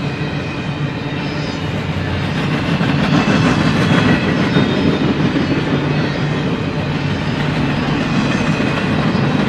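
Empty intermodal well cars of a BNSF freight train rolling past: a steady rumble of steel wheels on the rails, a little louder about three to four seconds in.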